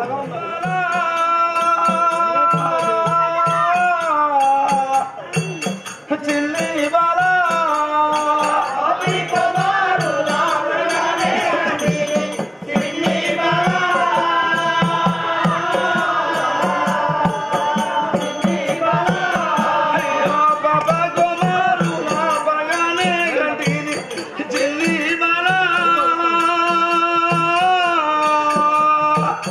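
Folk-drama song: a voice singing long, wavering held notes over a steady percussion beat with jingling.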